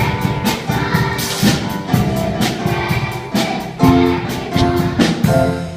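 A song with a steady drum beat and group singing, dropping away near the end.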